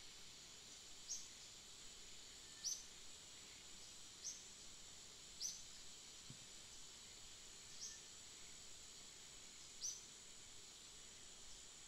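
Faint outdoor ambience: a steady high hiss with short, high chirps repeating about every one and a half to two seconds.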